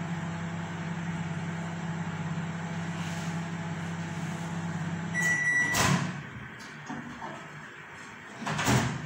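Microwave oven running with a steady hum, which stops a little past halfway with a single short beep as the cycle ends. The door clunks open just after, and it is shut with a second clunk near the end.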